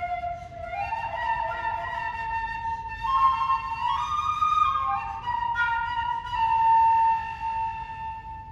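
Solo flute playing a slow melody, moving up and down by steps and slides between held notes, with a long sustained note near the end that is the loudest.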